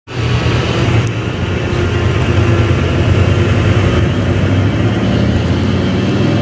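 2012 KME fire engine's diesel engine idling steadily in the firehouse bay.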